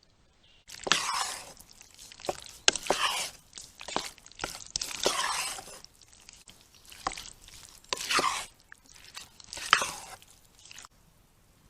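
A series of crunches: about seven irregular bursts over ten seconds, with sharp snaps among them.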